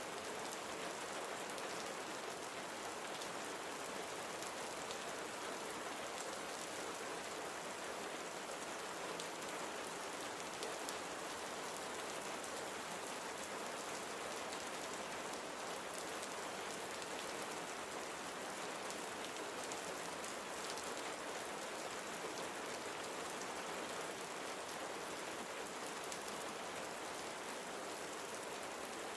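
Steady rain falling on a surface, an even hiss with faint patter of individual drops.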